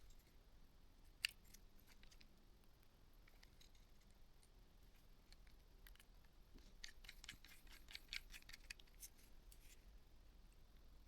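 Faint small clicks and ticks from handling plastic phone parts and small tools during reassembly: one sharp click about a second in, then a quick run of clicks from about seven to nine seconds in.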